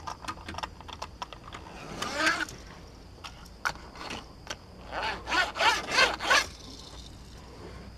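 Handling of a small die-cast and plastic Matchbox toy construction vehicle on a plastic Hot Wheels track: scattered light clicks and short rasping scrapes of plastic against plastic, with a cluster of scrapes about two seconds in and a longer run past the middle.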